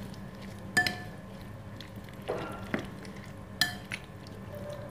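A metal spoon stirring a wet mashed ridge gourd and tomato mixture in a glass bowl: soft squelching and scraping of the mash, with two ringing clinks of the spoon against the glass, about a second in and again about three and a half seconds in.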